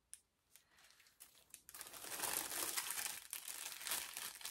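Crinkly packaging being handled: a few faint rustles and clicks, then from about a second and a half in a steady crinkling as the wrapping is worked in the hands.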